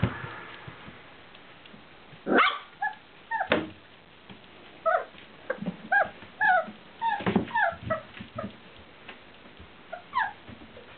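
Four-week-old Welsh Springer Spaniel puppies whimpering and yipping in a string of short, high, squeaky calls that slide up and down in pitch. A sharp knock comes about three and a half seconds in.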